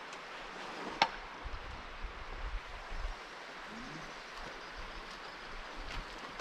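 Steady rushing noise with a single sharp click about a second in and some low rumbling just after it.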